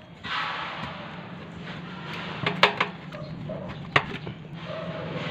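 Rustling and handling of small electrical parts, with a quick cluster of sharp clicks about halfway through and one more sharp click about a second later.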